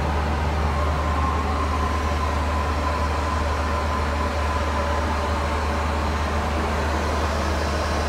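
Cabin noise of a Boeing 737-800 airliner with CFM56-7B engines: a steady deep drone of engines and airflow, with a thin steady whine that comes in about a second in.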